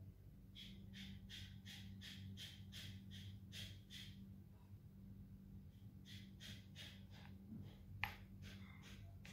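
A cat with its face at a basin of water makes faint, short rhythmic sounds at about three a second, in two runs of a few seconds each. A single sharper click comes about eight seconds in, over a faint steady low hum.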